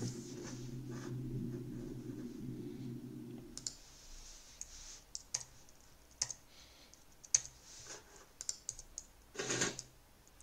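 A low steady rumble from the end of the played video's soundtrack cuts off about four seconds in. It is followed by scattered sharp clicks from a computer keyboard and mouse while the slides are changed.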